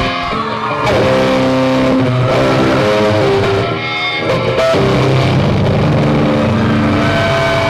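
Live rock band playing loud, with electric guitar chords changing every second or so.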